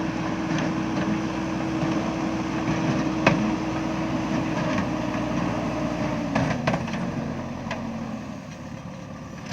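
JCB backhoe loader's diesel engine running steadily, its pitch dropping about two-thirds of the way through as the revs fall. A sharp clank about a third in and a few metallic knocks around the drop.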